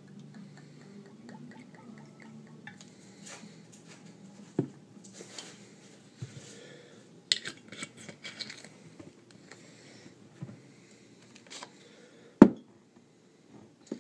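Tequila poured from a glass bottle into a shot glass, followed by scattered glass knocks and clinks as the bottles and shot glass are handled and set down on a table. The loudest is a single sharp knock near the end.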